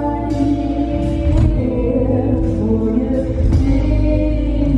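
Live band playing with singing over drums, held vocal notes over a heavy low end, and a few cymbal crashes.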